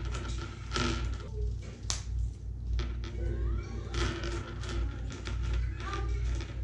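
Mentos roll wrappers being torn open by hand, with crackling paper and foil and the candies clicking as they spill onto a tabletop, over a steady low hum.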